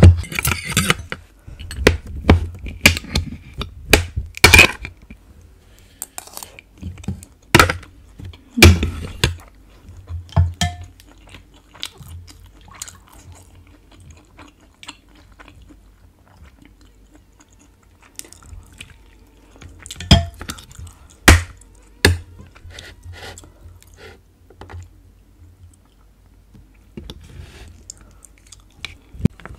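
Close-up eating sounds: a serving spoon and fork clinking and scraping against a glass bowl, ceramic bowls and a plate in scattered sharp knocks, some loud, with chewing in between.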